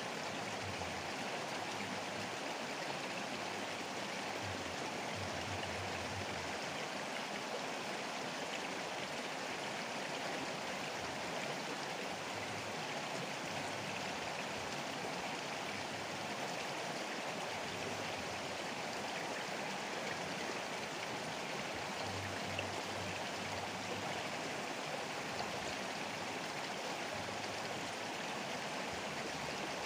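Fast-flowing river rushing steadily, an even unbroken wash of water noise.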